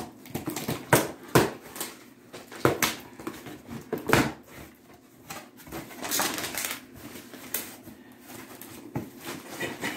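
A cardboard shipping box being pulled open by hand, its taped flaps tearing apart, with scraping, crackling and rustling of cardboard and packing in irregular bursts.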